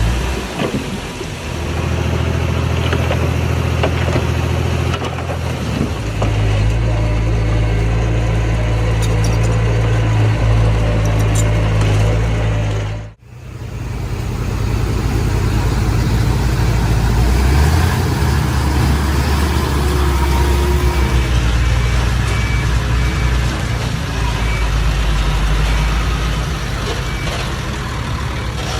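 Diesel engines of earthmoving machinery running steadily at a low pitch, the note shifting as the machines work. About thirteen seconds in the sound cuts out abruptly and comes back with a different engine note.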